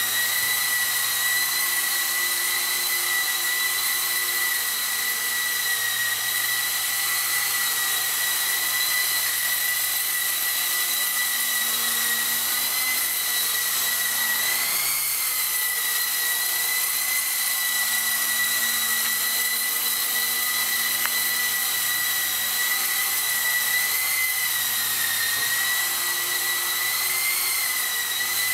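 Electric motors and twin counter-rotating rotors of an E-flite CX3 Huey micro RC helicopter, a steady high whine over a hiss of rotor wash as it flies. The pitch rises briefly about halfway through and again near the end, as the throttle is raised.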